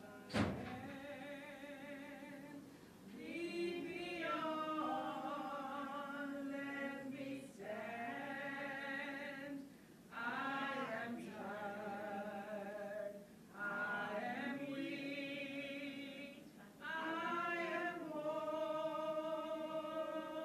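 A sharp click about half a second in, then a choir singing without accompaniment in long held phrases with vibrato.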